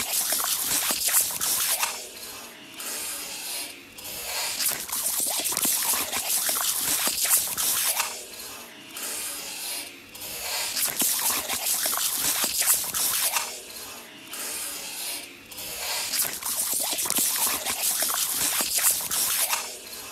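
Water hissing and spattering from a garden hose spray nozzle as a Labrador retriever bites and laps at the stream, with wet splashing and crackle. The spray swells and drops back every couple of seconds.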